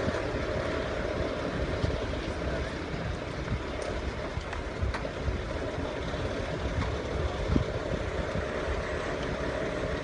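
Engine of a rail-cum-road truck with hi-rail guide wheels running steadily as it travels slowly along the rails, a low continuous rumble.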